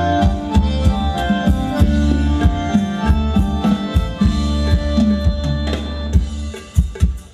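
Thai ramwong dance music from a live band: drums keep a steady beat under a sustained pitched melody. The music thins and falls in level near the end.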